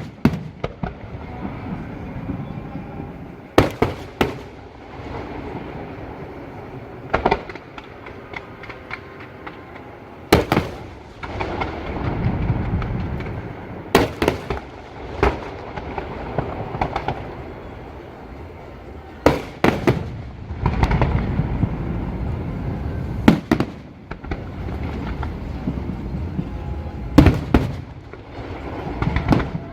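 Fireworks bursting overhead: sharp bangs every one to four seconds, some in quick pairs, with low rumbling between them.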